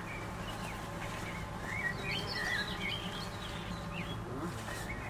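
A songbird chirping and twittering in short quick notes, busiest in the middle, over a steady low hum of honeybees flying around the hives.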